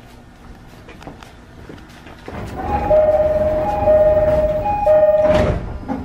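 Door-closing chime inside a JR East E217-series commuter car: a two-note high-low chime sounding three times as the sliding doors run shut, ending with the thump of the doors closing about five seconds in.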